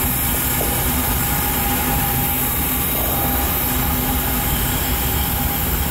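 Steady rumble of a loaded coal train's cars rolling along the rails, with a faint, steady wheel squeal.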